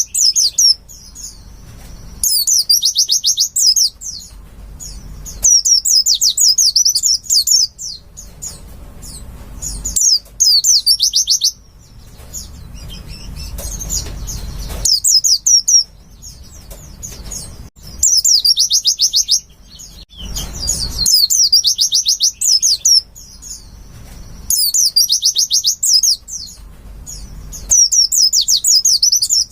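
White-eye (pleci) singing in bursts of rapid, high twittering song, each phrase a second or two long and repeating every few seconds.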